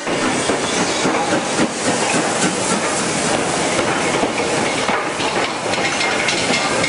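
Steam locomotive passing close by at a platform: wheels clattering over the rails with a hiss of steam, and a thin squeal joining near the end.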